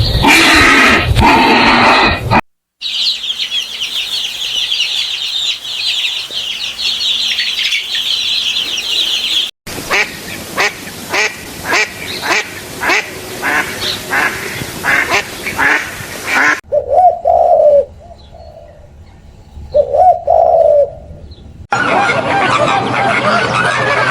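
A string of short animal-call clips cut together, mostly birds and fowl. First a dense high chirping for several seconds, then a run of short calls repeated about twice a second, then two louder lower calls a few seconds apart, and near the end a busy mix of calls.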